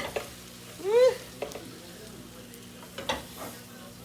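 Food frying in a pan with a faint steady sizzle, while a utensil stirs it and knocks against the pan several times. About a second in there is one short squeak that rises and falls in pitch.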